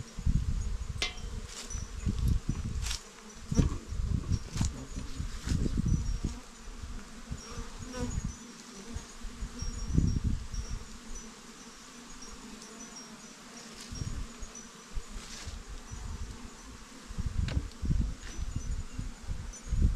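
Bees buzzing close by, the buzz swelling and fading as they fly past, with a few light clicks.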